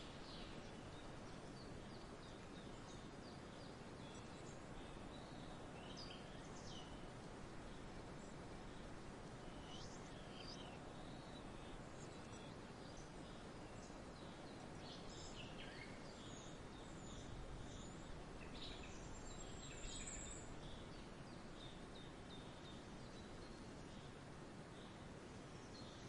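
Faint forest ambience: a steady low hiss with scattered short bird chirps and calls throughout.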